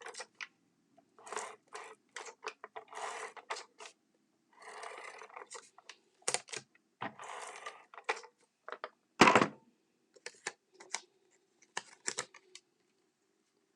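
Paper and card being handled at a craft table: rustling and sliding in short bursts, with one sharp knock about nine seconds in.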